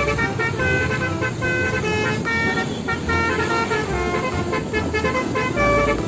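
A Mercedes-Benz OH1526 coach sounding a multi-tone musical air horn: a quick string of short notes at changing pitches, over a low rumble.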